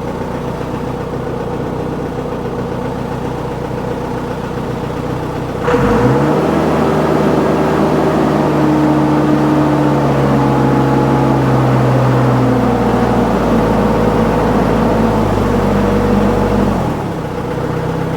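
Case 1845 skid steer's four-cylinder diesel idling, then revving up quickly about six seconds in and holding high revs for about ten seconds before dropping back to idle near the end. The engine takes full throttle again, the power loss cured by clearing crud from the check valve in its Stanadyne/Roosa Master injection pump.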